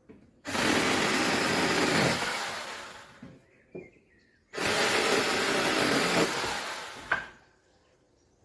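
Battery-powered 8-inch mini chainsaw cutting wood in two bursts of about two seconds each. Each burst trails off as the motor winds down.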